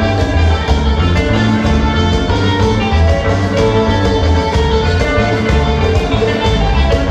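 Live Latin dance music from a band, with a steady pulsing bass beat and guitar.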